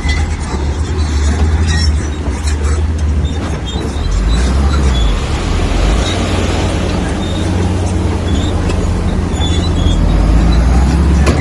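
Heavy diesel earthmoving machinery running steadily under load, with scattered sharp clanks.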